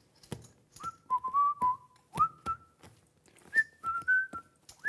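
A person whistling a short tune of about a dozen quick notes that step up and down, starting about a second in, over sharp clicks of poker chips being handled.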